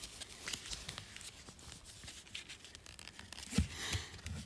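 Foil wrapper of a football trading-card pack being handled and torn open, with faint rustling and crinkling as the cards are slid out. A soft knock a little past three seconds in, followed by a brief crinkle.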